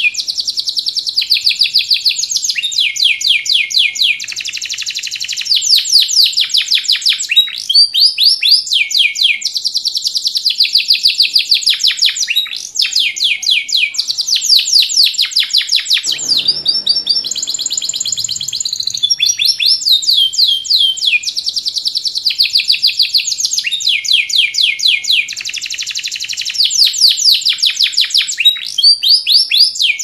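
Domestic canary in full song: a long, loud run of fast, high-pitched trills and rolls, switching to a new phrase every second or two, with a brief break about sixteen seconds in.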